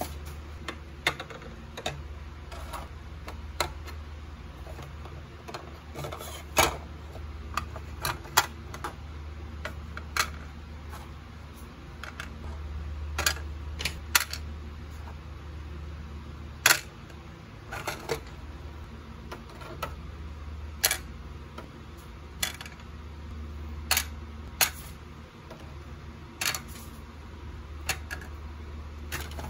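Irregular small plastic clicks and taps as Nendoroid faceplates and figure parts are set into a clear plastic drawer organizer and its little drawers are slid open, a few clicks sharper than the rest, over a low steady hum.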